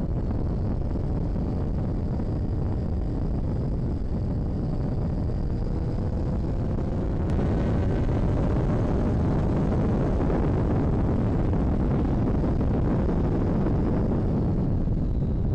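Motorcycle under way: the engine running beneath heavy wind rush on the microphone, its note rising slowly as it accelerates, and the sound getting a little louder about halfway through.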